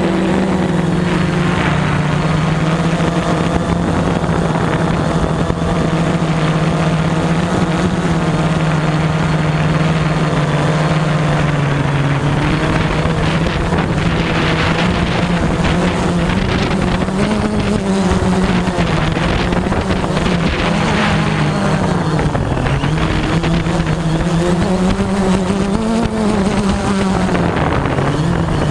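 Quadcopter drone's electric motors and propellers buzzing in flight, a steady hum that begins to waver up and down in pitch about halfway through as the throttle changes, with wind noise over it.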